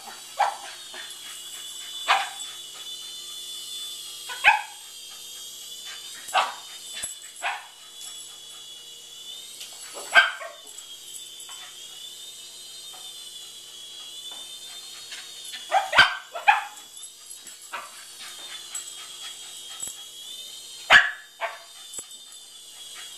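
A cockapoo barking sharply every few seconds, including a quick double bark, at a flying toy remote-control helicopter. The helicopter's small electric motor and rotor give a steady high whine that wavers slightly up and down in pitch.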